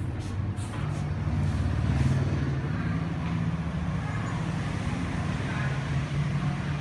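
Steady low hum of motor-vehicle traffic with an engine running, carrying through the room, with a few light clicks in the first two seconds.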